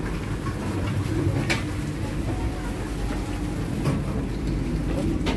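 Steady low rumble and hum inside an economy passenger coach of a train, with a few short sharp clicks about one and a half, four and five seconds in.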